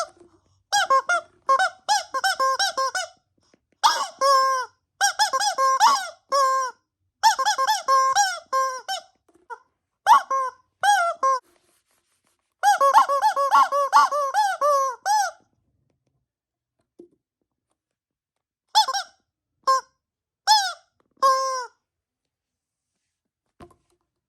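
Squeaky toy squeezed over and over, giving quick runs of short, high squeaks that bend in pitch. The runs stop about two-thirds of the way through, and a few more single squeaks follow near the end.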